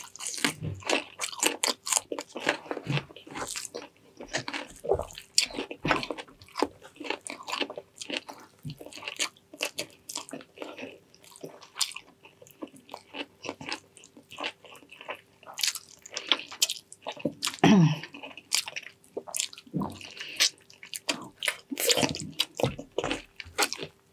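Close-up mouth sounds of someone eating soft, gelatinous braised pig's trotters: wet chewing and squishing with many short, irregular clicks.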